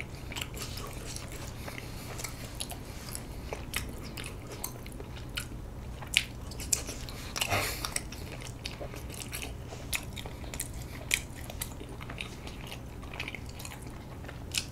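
Close-miked chewing of soft, sticky half-moon rice cakes (bandal-tteok) with a sweet red-bean filling: wet mouth clicks and smacks scattered throughout, over a faint steady low hum.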